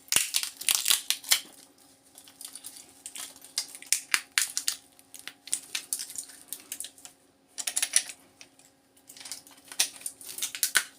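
Irregular clicking and cracking of hard plastic and small parts as a transformer is twisted out of a power adapter's casing, in clusters of rapid clicks with short pauses.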